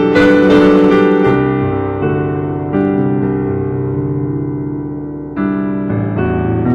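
Piano music: sustained chords, each struck and left to ring and fade, with new chords struck near the start, a little before the middle and about two-thirds of the way through.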